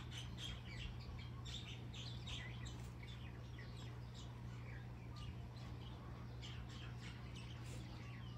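Small birds chirping in quick, short notes. The chirps come thick over the first few seconds and more sparsely later, over a steady low hum.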